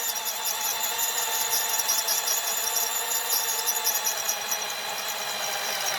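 Power drill running steadily under load, boring a hole with a large bit, with a steady motor whine.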